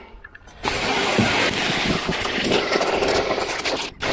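RYOBI pressure washer spraying a high-pressure water jet onto the inside of a boat's hull and deck; the spray starts about half a second in and cuts out briefly near the end.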